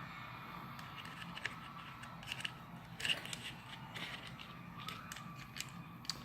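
Faint scattered clicks and light scrapes of small metal parts and screws being handled while fitting a mount onto a shotgun, over a low steady background hum.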